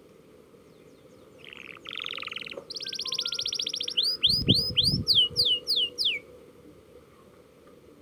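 Domestic canary singing one song phrase: a buzzy note, a fast rolling trill, then a run of about eight quick falling whistles, stopping about six seconds in. A young canary practising its rolled trill.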